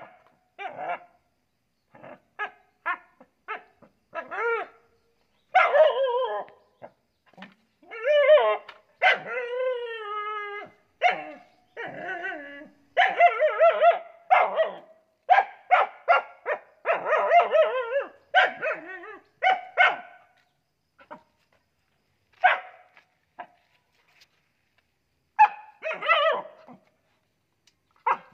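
Dog barking repeatedly at close range, with longer wavering whines mixed in; the calls come in short runs with gaps between them.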